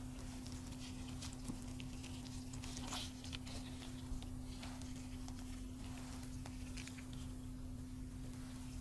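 Soft, sparse wet clicks and squelches of gloved fingers rolling a crepe-wrapped roll through egg batter in a baking dish, over a steady low hum.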